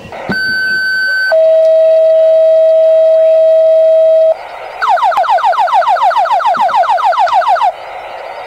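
Fire dispatch tone-out over a radio scanner: a short high paging tone about a second long, then a lower steady tone for about three seconds, followed by a rapid run of falling alert chirps, about six a second, with radio hiss in the gaps.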